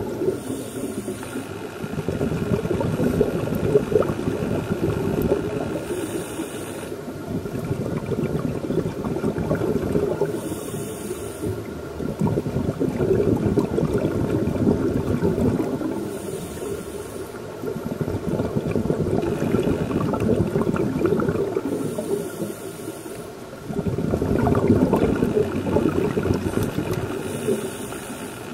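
Scuba regulator breathing underwater: a rumble of bubbling exhalations alternating with the short hiss of each inhalation, about every five to six seconds.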